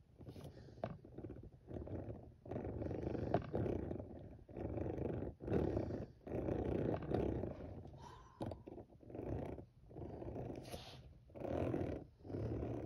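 Engine noises made with the mouth for a toy monster truck being pushed along: a string of rough, breathy bursts, each about a second long.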